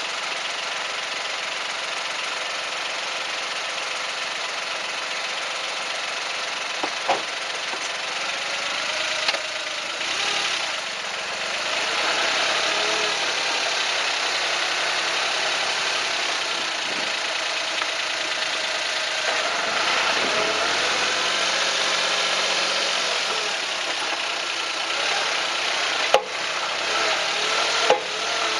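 Suzuki Jimny JB23's 660 cc three-cylinder engine and running gear heard from a camera mounted on the chassis frame while driving, with a few sharp clunks ("kakon") from the suspension: the abnormal noise the owner is tracing after forest-road driving. The clunks come about 7 s in, again shortly after, and twice near the end.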